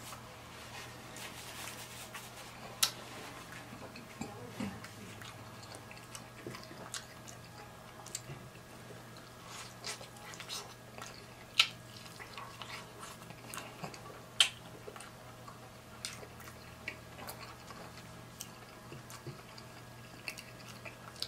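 A person chewing and biting shrimp, sausage, corn and fried fish, with many short, sharp mouth clicks and crunches, the loudest about three seconds in and twice more around twelve and fourteen seconds in. A faint steady hum runs underneath.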